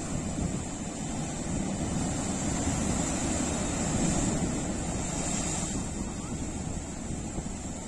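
Sea waves breaking against rocks on the shore and washing back in foam, a continuous rush of surf that swells a little about four seconds in.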